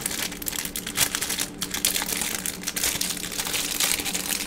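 Crinkling and rustling of crafting materials being handled, with many irregular light clicks, over a faint steady low hum.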